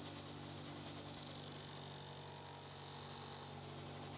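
Bench grinder with a polishing wheel running with a steady motor hum, and a high hiss as a small steel part is pressed against the spinning wheel, strongest from about a second in until shortly before the end.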